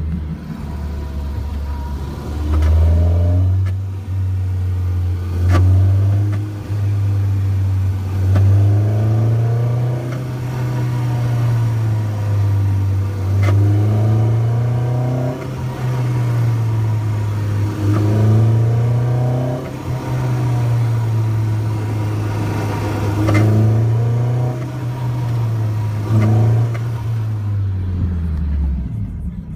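Toyota 2ZZ inline-four engine in an MR2 running and being revved in repeated blips, its low drone rising and falling in pitch every three to four seconds, with a few sharp clicks. A rattling/buzzing from behind the passenger seat is what is being chased; the fuel pump and the tank vent check valve have already been ruled out.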